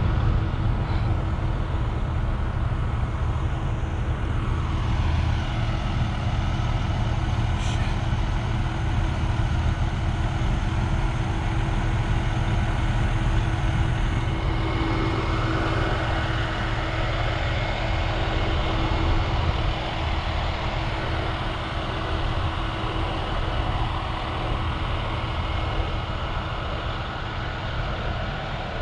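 Steady low rumble of idling vehicle engines and road traffic, with a constant low hum.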